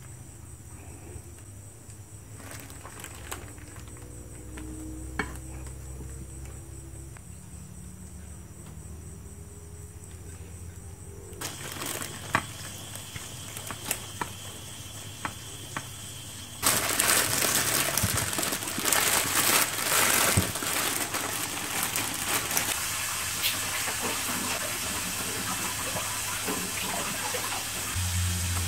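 Hands dredging raw chicken pieces through flour and beaten egg, with soft scattered handling clicks over a low hum. About two-thirds of the way in, a loud steady hiss starts and carries on to the end, the loudest sound here.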